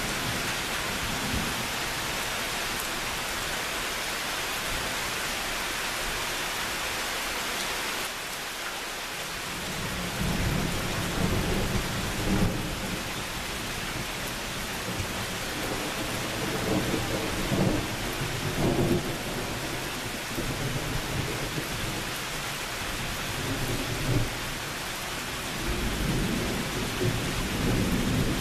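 Steady rain hiss, with low, rolling thunder rumbling in from about ten seconds in and swelling several times.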